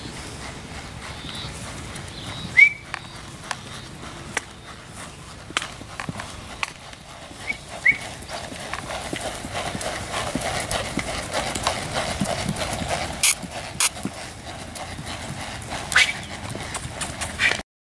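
Hoofbeats of a ridden chestnut horse moving at a brisk gait on a dirt track, a run of irregular sharp clicks and thuds. A few short high chirps cut in, the loudest about two and a half seconds in and two more near eight seconds.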